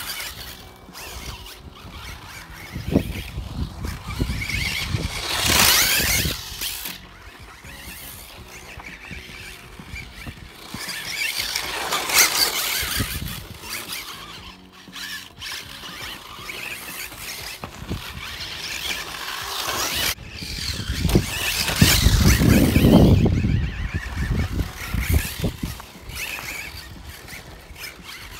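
Kyosho Turbo Optima electric four-wheel-drive RC buggy driving on a dirt track, its motor and drivetrain whining. The sound swells three times as the car passes close, with its tyres scrabbling over dirt and gravel.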